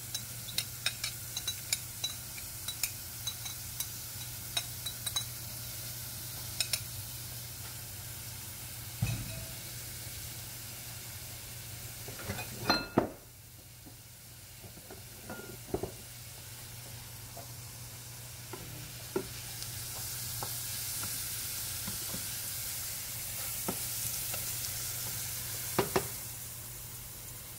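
Chopped red onions sizzling in hot olive oil in a frying pan, with light clicks and taps over the first several seconds as they are tipped in. A few sharp knocks about halfway through, after which the sizzle drops suddenly, then builds up again; two more knocks near the end.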